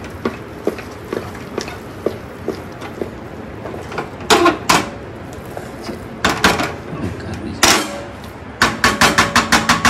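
Kitchen utensils knocking and clattering, with a few loud knocks in the middle. Near the end comes a fast run of strikes, about five a second, with a metallic ring.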